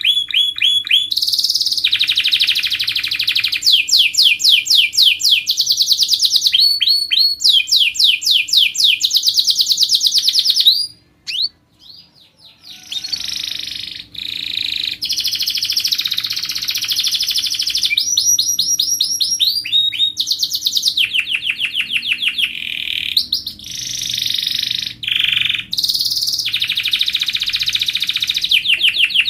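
Domestic canary in full song: fast trills of rapidly repeated notes, one roll after another. The song breaks off for about two seconds a third of the way through, then resumes.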